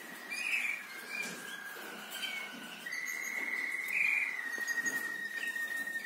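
Canary singing: long, held rolling trills that step between a few pitches, with short chirps over them.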